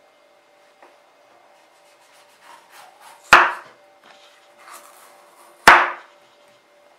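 Kitchen knife slicing rings off a peeled coconut kernel: the blade scrapes through the hard white flesh, then knocks sharply on the wooden cutting board as it cuts through, twice, about two and a half seconds apart.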